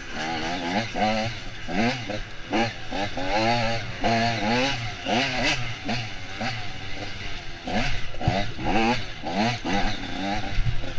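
Off-road dirt bike engine revving hard, its pitch climbing and dropping back again and again, about once a second, as the rider works the throttle and gears along a rough woodland trail.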